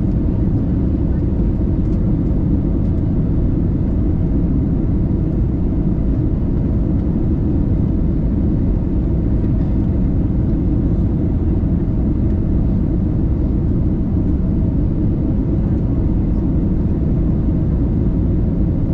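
Cabin noise of an IndiGo twin-jet airliner descending on approach, heard from a window seat beside the engine: a steady deep rumble of engine and rushing air, with a faint steady hum over it.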